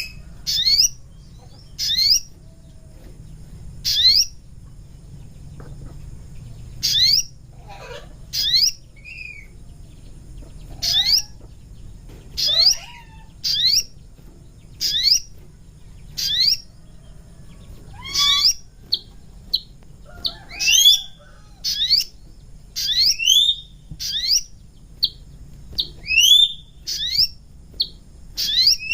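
Sogon bird lure call: short, sharp rising notes repeated about every one to two seconds, coming faster and more crowded in the second half, over a faint low hum.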